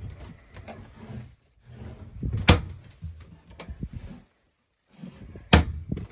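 Cabinet doors in a camper trailer being opened and shut, with two sharp clacks, one about two and a half seconds in and one near the end, and softer knocks and rustling between them.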